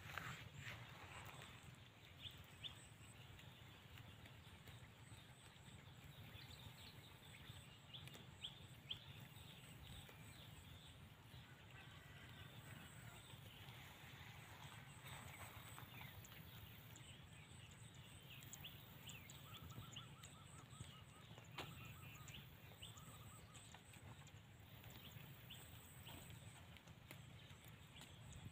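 Near silence: faint outdoor ambience with scattered small ticks and chirps.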